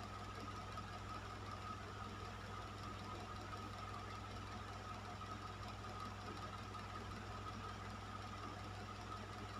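Electric fan running steadily: an even rush of air over a low motor hum and a faint steady whine.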